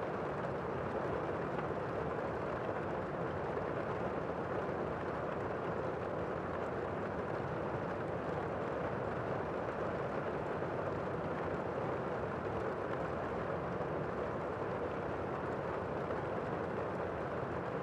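Steady, unbroken roar of tornado-force wind.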